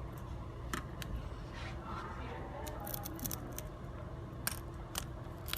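Scattered sharp clicks and crackles from the Galaxy S5's screen being pulled away from its frame, the adhesive letting go bit by bit, with a quick cluster of clicks about three seconds in.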